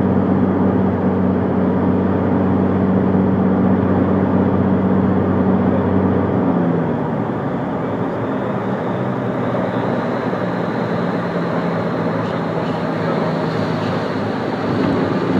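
Cirrus SR22's six-cylinder piston engine and propeller, heard from inside the cabin, running steadily at approach power. About six and a half seconds in, the engine note drops in pitch and level as the power comes back toward idle for the flare over the runway, leaving a quieter mix of airflow and idling engine.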